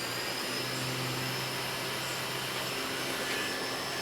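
Spindle of a Feeler VMP 580 vertical machining center running unloaded at 6,000 RPM: a steady high whine over an even hiss and a low hum.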